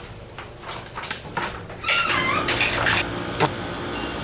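A person crying: a run of short sharp sniffs in the first half, then wailing sobs from about two seconds in.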